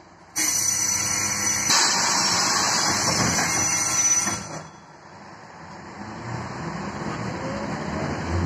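Loud hiss of compressed air from an Ikarus 280 bus's pneumatic system, starting suddenly and lasting about four seconds while the bus stands at a stop. The bus's Rába D10 diesel engine then builds up as the bus pulls away.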